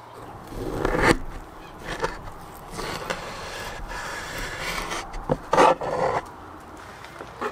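A large chef's knife sawing through the crisp, browned crust of a slab of pork fat on a wooden cutting board: irregular rasping, crunching strokes, the loudest two or three coming about five to six seconds in.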